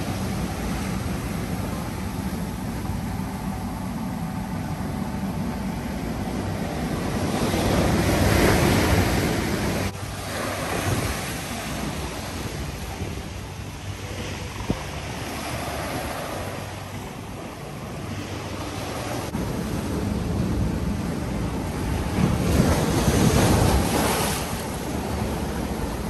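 Ocean surf breaking and washing up a sandy beach and over shore rocks, a steady rushing that swells louder twice.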